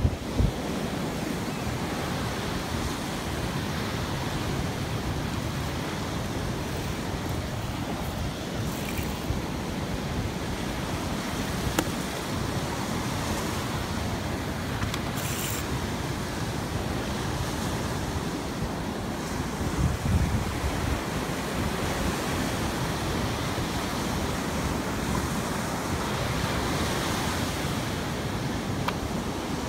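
Wind rushing and buffeting the microphone on a moving land yacht, with the hiss of surf breaking along the beach; a couple of faint clicks about halfway through.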